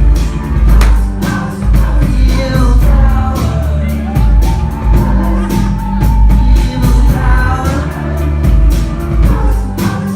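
A rock band playing live: singing over a steady drum beat and heavy bass, with one long held sung note in the middle.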